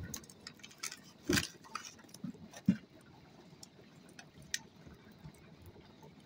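Scattered knocks and clinks of cooking utensils and pots being handled: a louder knock about a second in, another a little later, and a sharp click midway.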